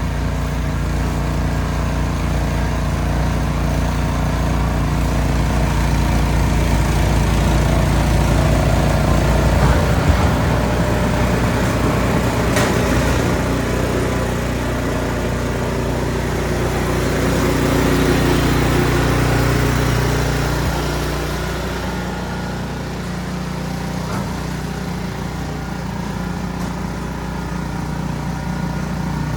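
Ariens Platinum SHO two-stage snow blower engine running steadily under load, its note swelling and easing as it works through heavy snow.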